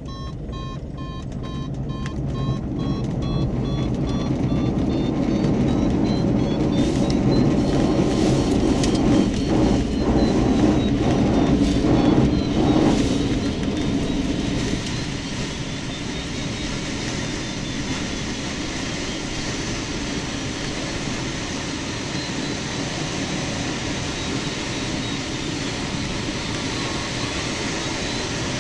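Noise inside a PW-6U glider's cockpit on its aerotow takeoff roll: rumble and a few knocks from the runway and rushing air. It builds over the first dozen seconds, then eases to a steadier rush. A variometer's electronic tone beeps briefly at the start, then warbles up and down in pitch.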